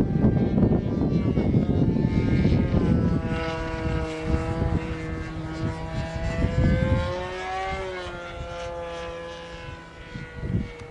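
Radio-controlled model airplane flying overhead: the engine and propeller drone at a steady pitch that rises slightly and then falls away at about eight seconds as the plane passes, fading near the end. A low rushing noise covers the first three seconds.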